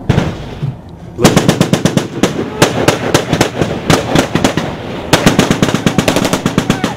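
Close, loud automatic gunfire: a sharp shot right at the start, then from about a second in long rapid bursts of about ten shots a second, with a brief break about five seconds in.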